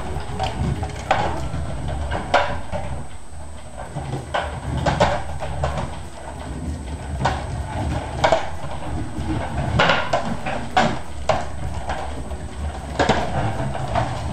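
Clear plastic hamster balls rolling and knocking on a hard floor and against the baseboard as a cat bats at them: irregular hollow clicks and knocks, a few every second, over a low rolling rumble.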